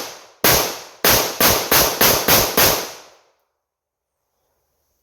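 9mm semi-automatic handgun (PSA Dagger slide on a 3D printed lower) firing: a single shot about half a second in, then a rapid string of about seven shots at roughly four a second, each one ringing out briefly. The rapid fire is hard to control.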